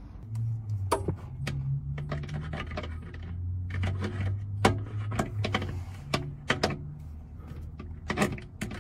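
Irregular metallic clinks, taps and knocks of parts and tools being handled against an engine, over a low steady hum.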